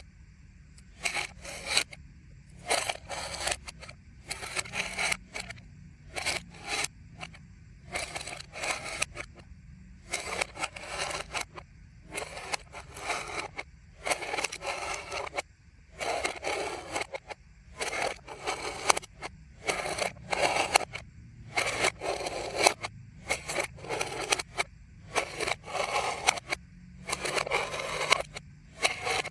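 Aluminium foil being rubbed and scraped in short, repeated strokes with a crinkling, papery hiss, about one stroke a second with brief pauses between.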